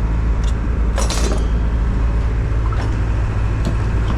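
Steady low engine rumble, with a glass French press and dishes clinking several times, the loudest cluster about a second in.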